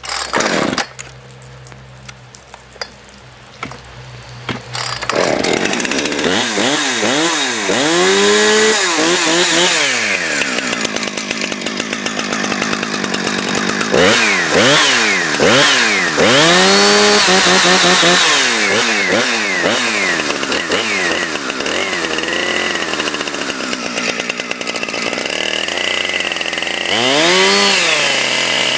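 Husqvarna 455 Rancher two-stroke chainsaw cold-started after priming: pull-cord strokes, then the engine catches about five seconds in and runs. It is revved up and down several times, idling between the revs.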